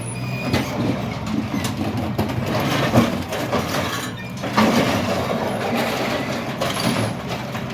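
Heavy scrapyard machine's engine running steadily while metal clanks and knocks sound as it pulls the motor out of a scrap car. The sharpest knock comes about three seconds in.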